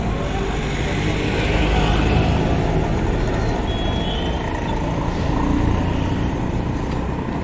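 Busy street ambience: a steady rumble of motor traffic with general roadside bustle.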